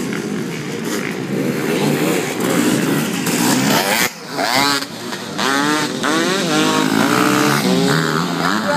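Dirt bike engines revving, their pitch rising and falling with the throttle. After a short dip about four seconds in, the revs swing up and down in quick repeated swells.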